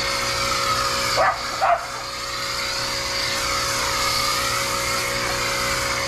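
Suyncll pressure washer running steadily, a motor hum under the hiss of spraying water. A dog barks twice about a second in.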